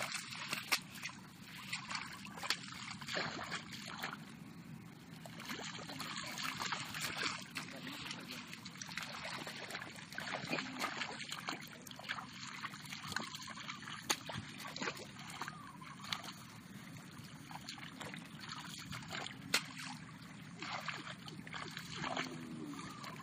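Shallow muddy water sloshing and splashing as hands scoop and churn it, with many small irregular splashes.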